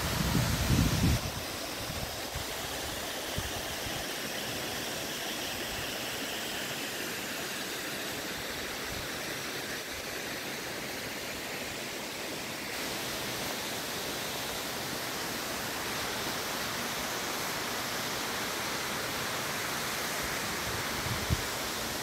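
Steady, even rush of falling water. For about the first second, wind buffets the microphone with low rumbling gusts.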